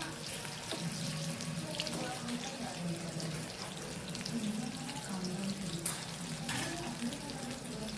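Corn pakoras deep-frying in hot oil, a steady sizzle, with one sharp click about six seconds in.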